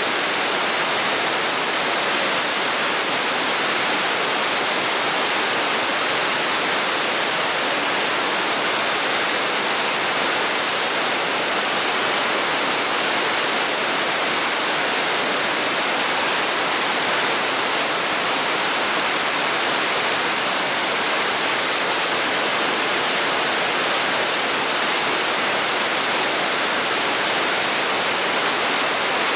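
Mountain stream rushing steadily over rocks: an even, unbroken hiss of running water.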